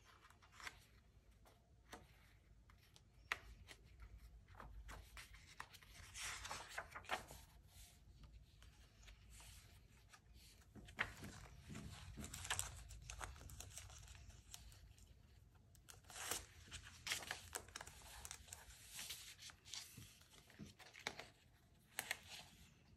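Translucent film sticky index tabs being peeled off their backing sheet and pressed onto diary pages: quiet bouts of crackly peeling and plastic crinkling, with scattered light taps and paper handling between them.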